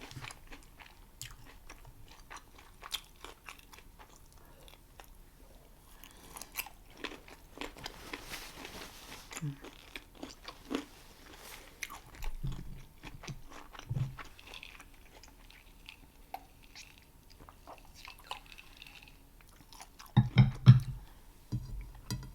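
Close-miked chewing and biting of a homemade plant-based burger, with wet mouth clicks and soft crunches. A few louder low knocks come near the end.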